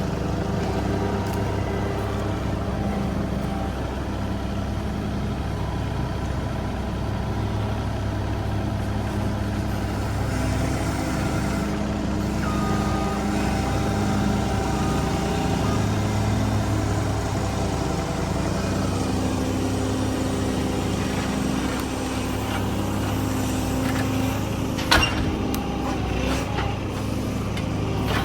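Engine of a piece of heavy equipment running steadily, its pitch shifting slightly now and then, with a sharp knock near the end.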